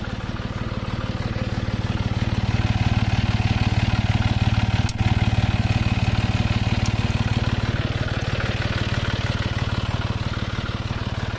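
John Deere 5305 tractor's three-cylinder diesel engine running steadily nearby as a low, even hum, growing louder about two seconds in. A single sharp click comes about five seconds in.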